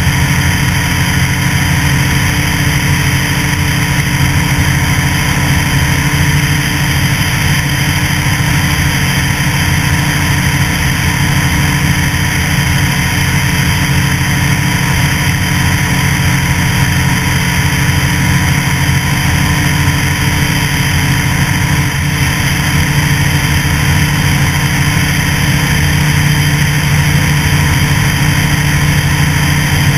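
A light aircraft's liquid-cooled engine and propeller running steadily in level flight, a constant low drone with a rushing hiss over it.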